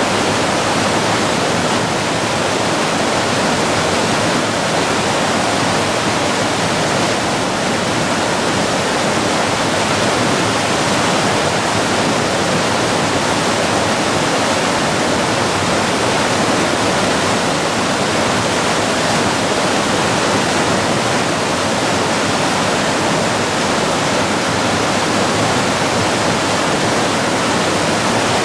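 Steady loud rush of the Shimanto River in flood, its current swollen and fast after typhoon rains.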